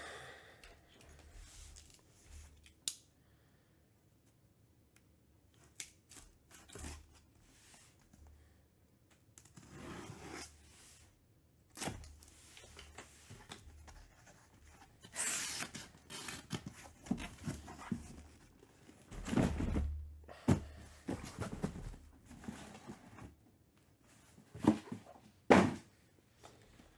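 A cardboard shipping case being cut and torn open, its flaps pulled back, and the boxes inside slid out and set down, with scattered rustles and knocks. The two sharpest knocks come near the end.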